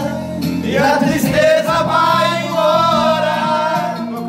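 Men singing together in long held notes, over music playing along with them.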